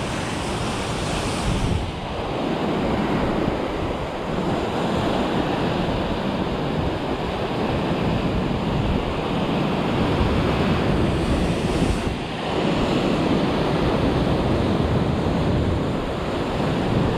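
Ocean swell breaking and washing over rock ledges, the wash surging louder twice as fresh waves come in, with wind rumbling on the microphone.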